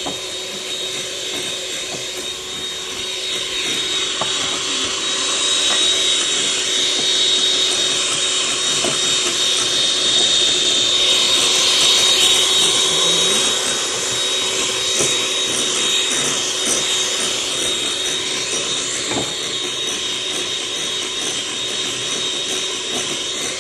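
Electric hand mixer running steadily, its beaters whipping eggs and sugar into sponge-cake batter in a glass bowl. It grows a little louder through the middle.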